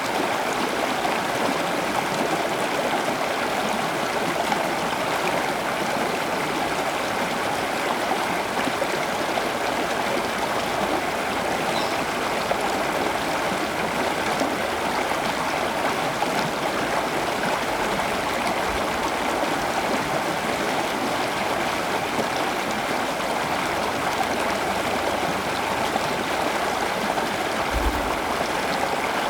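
Steady rush of running water, even and unbroken, like a stream.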